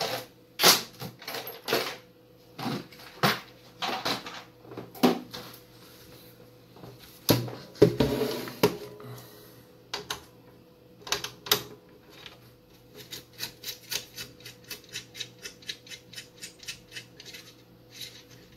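Hands and tools working on the opened satellite receiver's metal chassis: irregular sharp clicks and knocks, then, about two-thirds of the way in, a run of even quick ticks at about five a second.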